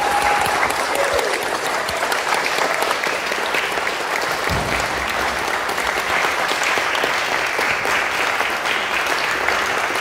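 Audience applauding steadily, a dense even clapping throughout.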